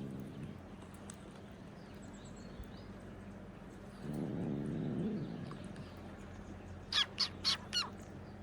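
A bird calling four short, quick notes in a row near the end. Earlier, a low, pitched voice-like sound lasts about a second.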